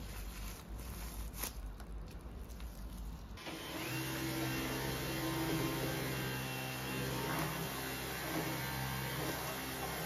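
Plastic film crinkling as it is handled and pressed around a package, then, about a third of the way in, a Dyson V15 Detect cordless stick vacuum cuts in and runs steadily, pushed over a tile floor.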